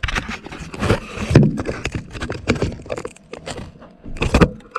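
Hands handling a car's interior roof trim and wiring: irregular clicks, knocks and scraping, with sharper knocks about a second and a half in and near the end.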